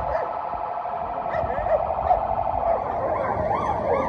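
Police siren wailing, its pitch sweeping up and down two or three times a second, becoming clearer and stronger about three seconds in.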